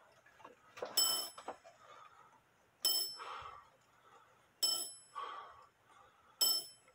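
Dutch Sallander wall clock striking on its bell: four evenly spaced strikes about two seconds apart, each ringing out and fading before the next.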